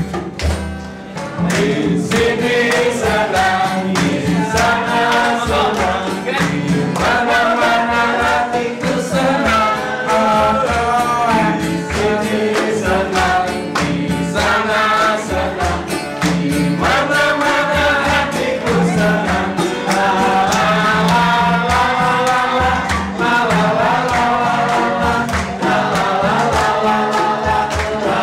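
Live song: a man singing into a handheld microphone through a speaker, with an acoustic guitar strumming a steady rhythm and a group singing along.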